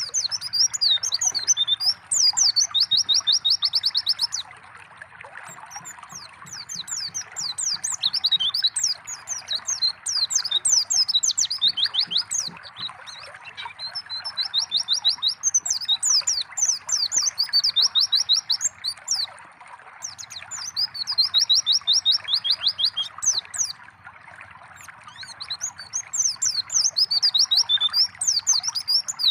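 White-eye (pleci) singing in repeated bursts of quick, high twittering with fast trills, with brief pauses between phrases. Under it runs a steady trickle of water.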